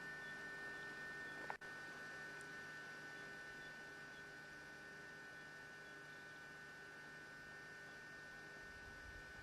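Near silence: a faint steady electrical hum with a thin high whine over low hiss, with a brief click and dropout about a second and a half in.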